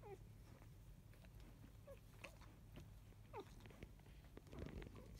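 Faint squeaks and whimpers of five-day-old Labrador Retriever puppies: a few short, high calls that slide down in pitch. There is soft rustling near the end.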